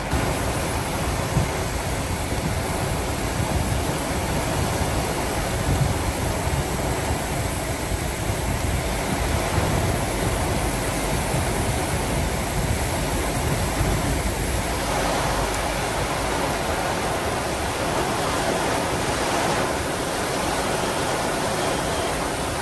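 Heavy thunderstorm downpour: dense, steady rain noise with a low rumble underneath.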